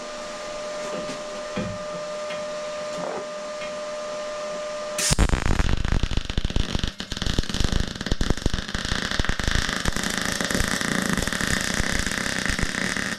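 MIG welder arc crackling and spitting as a steel bracket is welded onto a steel locomotive frame. The arc strikes suddenly about five seconds in, breaks briefly near seven seconds and runs on for about eight seconds before stopping. Before the arc there is only a steady hum.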